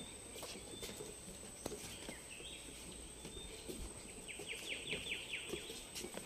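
Faint forest ambience with birds calling. About four and a half seconds in, one bird gives a quick run of about eight short notes, each falling in pitch.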